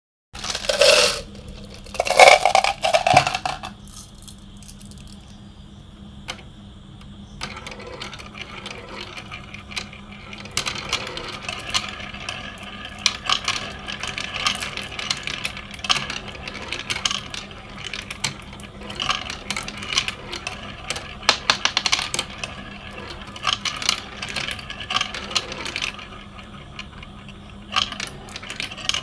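Marbles rolling and rattling through a plastic tube-and-funnel marble run, clicking against the track and circling in the funnels, over a steady low hum. Two loud clatters come in the first few seconds, and the busy clicking picks up about eight seconds in and keeps going.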